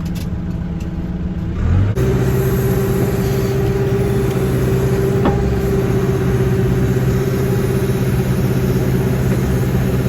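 John Deere backhoe's diesel engine running, revving up about two seconds in and then holding at a steady higher speed under working load. A single sharp click about five seconds in.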